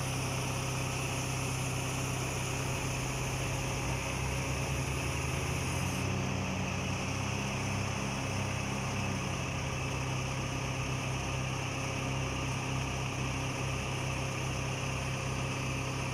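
Diesel engine of farm machinery running at a steady speed.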